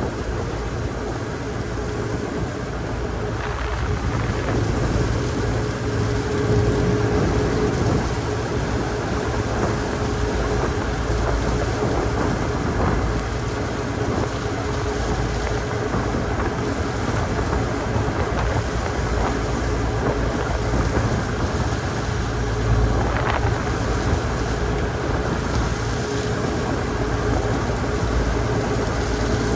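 Car ferry's engines droning steadily, with wind and rushing sea noise over them as the ship rides rough swells.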